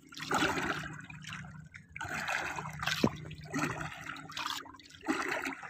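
Water splashing and lapping against a small boat's hull in irregular bursts, over a faint steady low hum.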